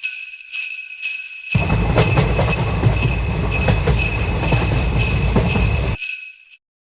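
Japanese railroad crossing warning bell ringing, repeating about twice a second. A train rumbles past from about one and a half seconds in, and both stop shortly before the end.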